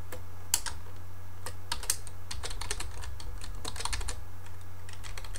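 Typing on a computer keyboard: irregular keystroke clicks, several a second, over a steady low hum.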